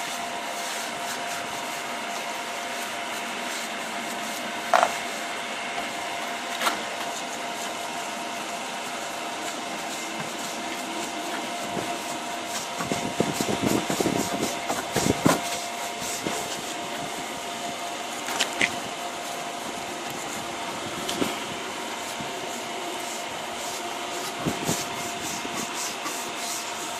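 Long-handled stiff brush scrubbing a van's wheel and lower side panel, the bristles rubbing back and forth over the wet metal and tyre. The scrubbing grows busier about halfway through. The brush head knocks sharply against the van now and then. A steady hum runs underneath.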